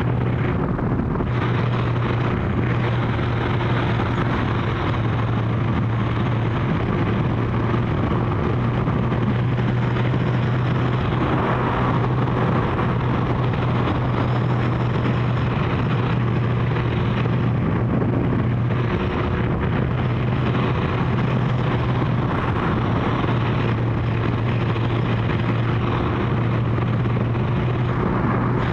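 Kawasaki GPZ1100 inline-four engine running at a steady cruise on the move, with a steady rush of wind noise.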